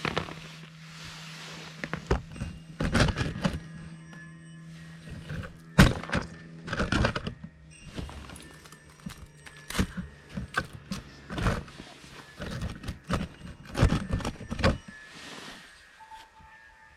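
Irregular clicks and sharp knocks of fishing gear being handled, typical of a line being reeled in and a crappie being landed through the ice. A steady low hum runs underneath and stops about ten seconds in.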